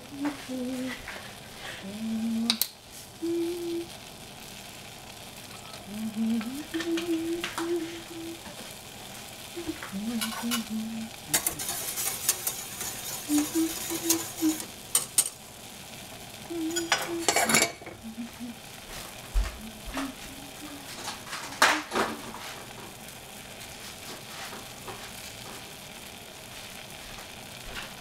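Strawberry pieces sizzling in a stainless steel saucepan over a gas flame: a steady hiss with a few louder crackling bursts and sharp clinks scattered through it.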